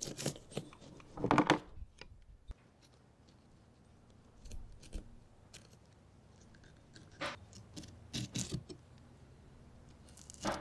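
Fillet knife slicing through a yellowtail snapper and scraping on a plastic fish-cleaning table, in scattered short scrapes and clicks. The loudest comes about a second and a half in, and another cluster comes around seven to eight and a half seconds in.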